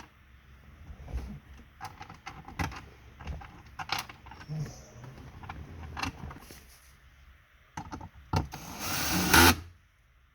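Light clicks and knocks of a screw and dashboard parts being handled, then about nine seconds in a power driver runs for about a second, driving a Phillips screw into the dash.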